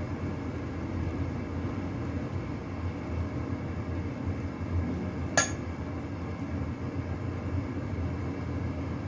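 Steady low background rumble while dumplings are filled and folded by hand. A metal spoon clinks sharply once, about five seconds in.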